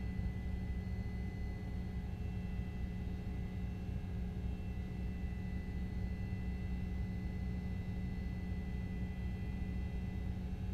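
Steady low rumble with a constant hum and a few faint high tones, unchanging throughout.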